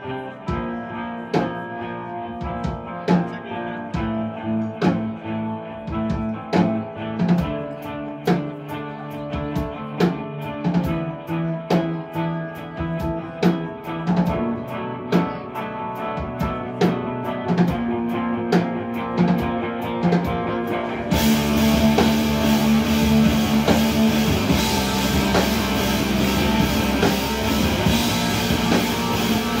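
Live rock band playing electric guitars and bass over a drum kit, with sharp drum hits on a regular beat. About two-thirds of the way through, the whole band comes in at once, much louder, with a dense wash of guitars and cymbals.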